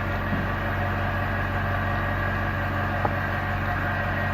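Steady electric machine hum from workshop equipment, even and unchanging, with a faint click about three seconds in.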